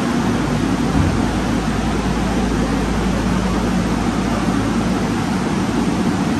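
Steady, loud rushing noise with a low hum running underneath it.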